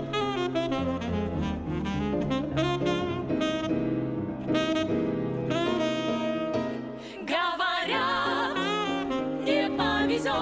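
Tenor saxophone playing a solo break in an upbeat twist, over piano and bass backing. About seven seconds in the bass drops out for a moment, then the band comes back in.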